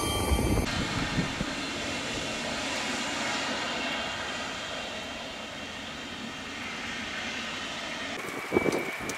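The twin Pratt & Whitney Canada PW545 turbofans of a Cessna Citation XLS business jet run at low taxi thrust, a steady whine and rush. Gusts of wind buffet the microphone briefly at the start and again near the end.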